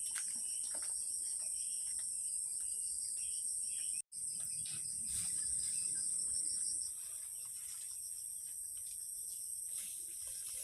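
Steady, high-pitched chorus of insects, a dense trill with a pulsing lower layer, broken off for an instant about four seconds in and a little quieter from about seven seconds on.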